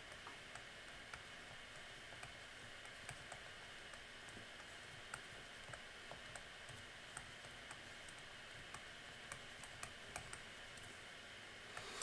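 Faint, irregular light clicks and taps of a stylus on a tablet screen during handwriting, over a steady low hiss.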